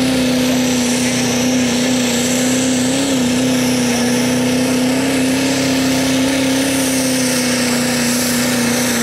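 Diesel pickup truck engine held at full throttle under heavy load while pulling a weight-transfer sled. It drones at an almost constant pitch that wavers briefly about three seconds in, with a faint high whine above it.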